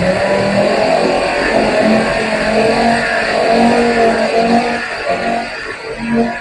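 Air-powered dual-action (DA) sander running steadily on bare car body metal, cutting off right at the end; it is sanding panels treated with a rust-converting metal prep, before priming.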